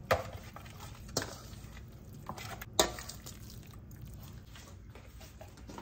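Metal spoon stirring raw ground meat in a stainless steel bowl: soft squishing with a few sharp clinks of spoon against bowl, the loudest about three seconds in.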